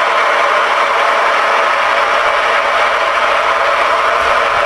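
Cobra 29LX CB radio's speaker giving a steady, loud static hiss while receiving on channel 19.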